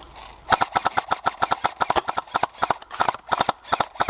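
Quick footsteps of a person running on rough ground, picked up close by a body-worn camera. They come about five or six a second, starting about half a second in.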